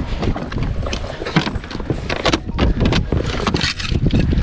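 Freshly gaffed mahi-mahi thrashing aboard a fishing jet ski: rapid irregular slaps and knocks of the fish against the craft, with splashing water.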